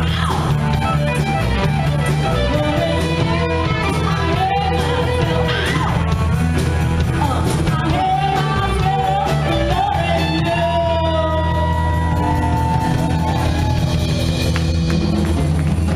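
A rock band playing live: a woman singing lead over electric guitars, bass and a drum kit with a steady beat.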